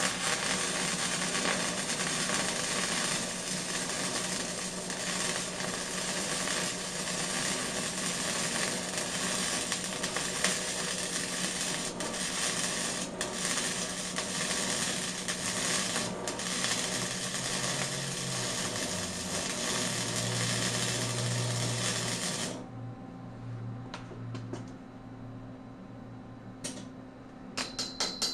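Wire-feed (MIG) welding arc making a dense, steady crackle through one long continuous bead on a steel gusset, cutting off abruptly about 22 seconds in. After that come a few faint ticks, then several sharp clicks near the end, one with a brief metallic ring.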